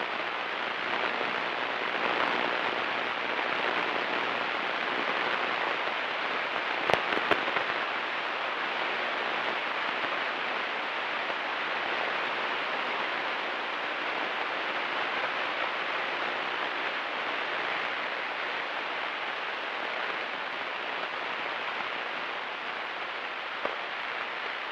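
Steady cabin noise of a Cessna 172 Skyhawk in flight, an even rushing hiss of engine and airflow, with a couple of short clicks about seven seconds in.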